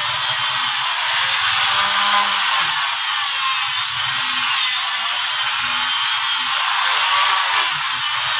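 An electric power tool running continuously on wood, its high whine slowly rising and falling as the load changes.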